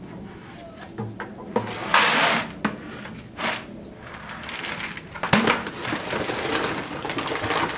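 Handling noise from plastic buckets, whole grain and paper feed sacks. There is a short, loud rush about two seconds in, a few sharp knocks including a duller thud a little after five seconds, and steady rustling near the end.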